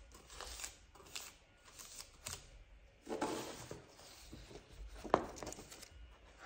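Faint rustling of paper: a folded paper cupcake liner pressed flat onto a sheet, then the sheet lifted and handled, with a louder rustle about three seconds in and a single sharp tap about five seconds in.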